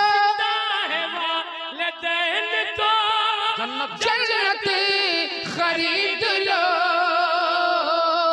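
Naat recitation: a voice sings a long, ornamented melodic passage without words, over a steady held drone, amplified through microphones.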